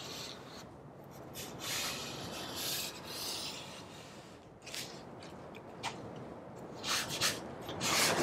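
Hand squeegee rubbing over a vinyl decal's backing on a car hood, pressing the decal down in a series of uneven scraping strokes, some short and some drawn out.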